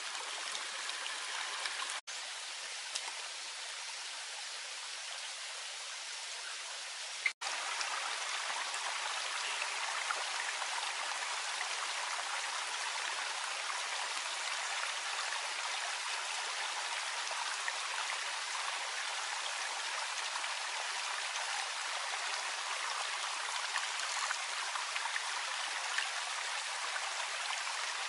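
Small stream of water running steadily, with two very brief breaks about two and seven seconds in.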